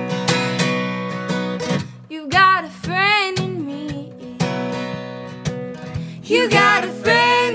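Background song with strummed acoustic guitar; a melodic line with rising and falling pitch comes in about two seconds in and again near the end.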